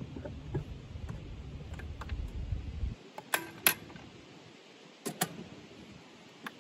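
Sharp metal clicks from a 9.9 hp Yamaha outboard's tilt mechanism and kicker bracket as the tilted-up motor is released and lowered: two clicks close together a little past three seconds in, then two more about a second and a half later, and a last one near the end. A low rumble runs under the first half and stops abruptly.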